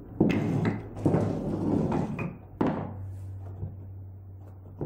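Small wooden dumbbells knocking and scraping on a wooden floor as a dog noses and handles them. A dense clatter of knocks fills the first two seconds, then a few separate sharp knocks follow.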